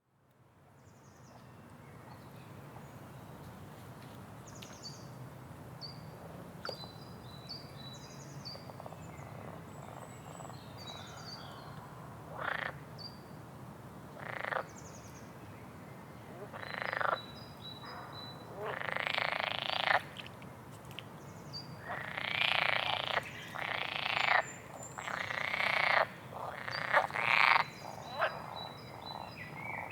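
Swamp ambience fading in: frogs croaking, each croak under a second, at first every couple of seconds from about twelve seconds in, then coming thick and fast near the end. Short high bird chirps sound throughout over a steady low background.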